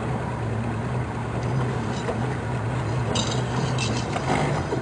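Boat motor running steadily with wind and water noise, and a short run of clicks about three seconds in.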